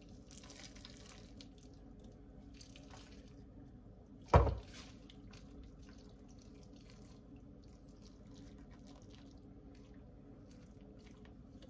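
Custard of scalded milk and eggs poured from a pot over bread cubes in a glass baking dish: faint trickling and splashing. About four seconds in, a single loud thump.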